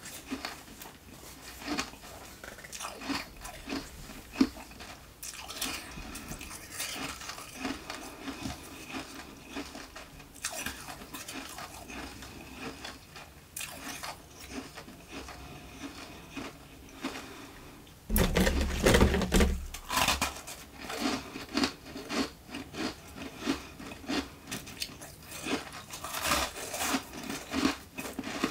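Nugget ice being chewed close to a microphone: a steady run of crisp crunches that grows much louder and heavier for a couple of seconds about two-thirds of the way through.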